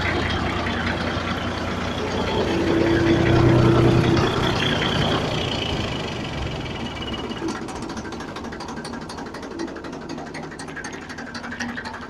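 A tractor engine runs, driving a homemade potato harvester's welded steel-rod chain conveyor through its PTO shaft and gearbox, with the conveyor chain clattering. The engine note swells about three seconds in, then eases off and runs quieter for the second half.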